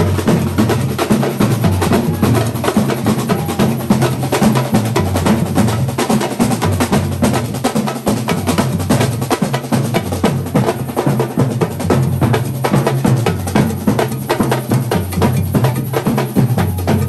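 A marching drum troupe playing together: large red marching drums struck with sticks alongside snare drums, beating a fast, dense, steady rhythm.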